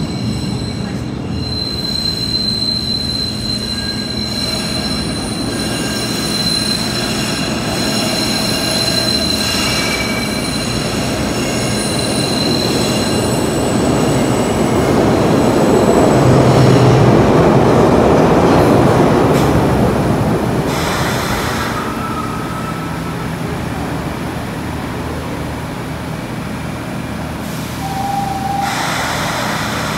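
SEPTA subway train coming through the tunnel into the station, its running rumble building to a peak about halfway through and then easing. High steady wheel squeal sounds through the first half, and a brief higher tone comes near the end.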